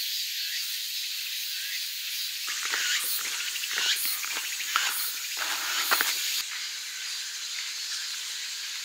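Steady high-pitched hiss of a summer insect chorus. Over it, between about two and a half and six and a half seconds in, comes a run of irregular crunching steps on a gravel road.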